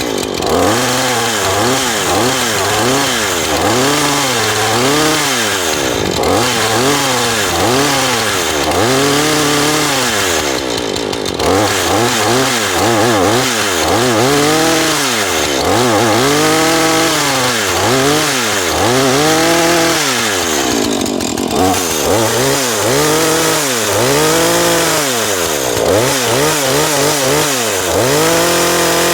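Husqvarna 440e two-stroke chainsaw revved up and dropped back toward idle over and over, about one blip of the throttle every second and a half, while its chain oiler is checked for oil being thrown onto the bar.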